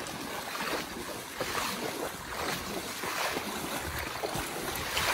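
Water sloshing and splashing as someone wades through shallow water in waders, with wind on the microphone.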